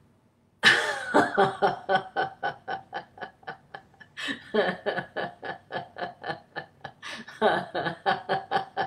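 A woman laughing aloud in quick repeated 'ha' pulses, about four a second, breaking off briefly about four seconds in and then starting again. It is a deliberate laughter-yoga laugh, let out on the exhale.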